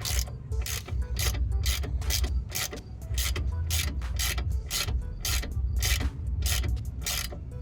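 Hand ratchet with a T55 Torx bit tightening a brake caliper bolt: the pawl clicking in a steady rhythm of about two to three strokes a second, over a low rumble.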